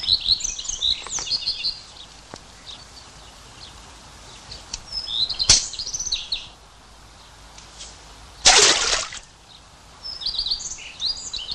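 Small birds chirping and singing in several short flurries, with one sharp click about halfway through. About two-thirds of the way in comes a short, loud splash as something drops into the river.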